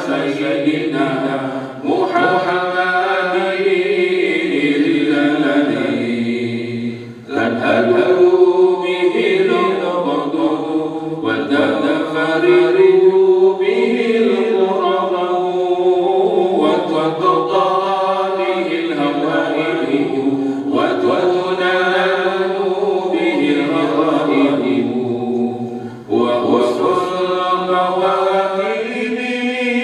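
Men's voices chanting an Islamic salawat, the prayer upon the Prophet Muhammad, with a gliding, melismatic melody. The chant runs in long sung phrases separated by short breaths.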